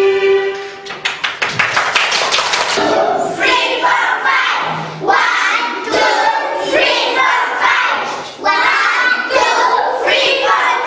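A quick run of hand claps for about two seconds, then loud, high voices calling out over scattered claps and thumps.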